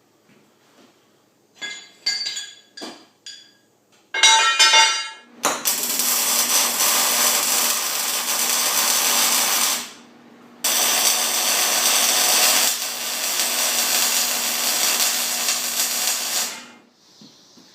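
A few knocks and ringing clanks of steel being handled, then a power tool working on steel, running loud and steady for two long stretches with a short break between them.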